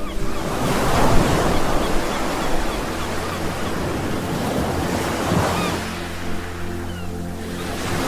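Ocean waves breaking and washing up a shore, with the surf swelling twice, about four seconds apart.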